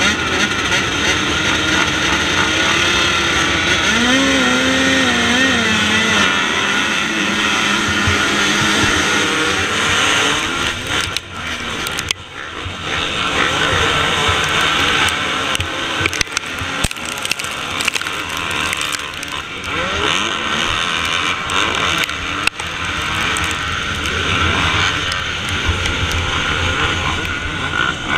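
Engine of a 2017 KTM 250 SX two-stroke motocross bike revving on the start line, then running hard through the start among many other dirt bike engines racing in a pack.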